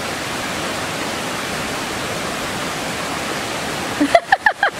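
Steady rushing of a small creek waterfall pouring over rocks into a pool. About four seconds in, the rushing drops out and a voice breaks in.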